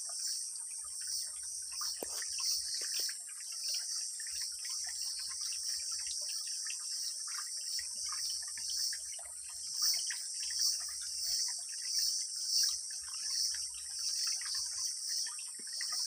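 Steady, high-pitched insect chorus with a pulsing buzz, with faint scattered chirps and ticks underneath.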